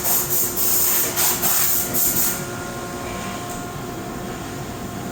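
A cloth rubbing grease off a reformer guide wheel in quick scrubbing strokes, about three or four a second, stopping about two seconds in. After that only a steady hum with faint steady tones remains.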